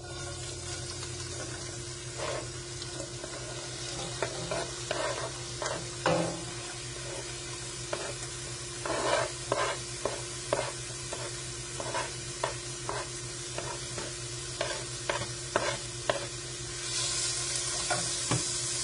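Chopped bell peppers, onion, celery, garlic and shallots sizzling in hot olive oil in a stainless steel pot. Repeated short scrapes and knocks come from the vegetables being pushed off a plastic cutting board and stirred with a wooden spoon. The sizzle grows louder near the end.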